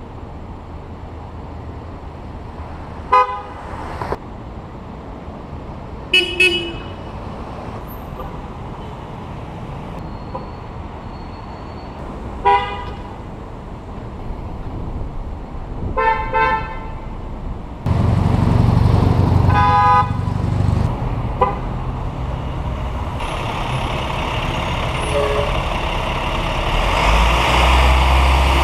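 Car horns honking at passing traffic: about six short honks spread through the stretch, some single and some double, over steady road traffic noise. A louder vehicle engine rumble comes in past the halfway point.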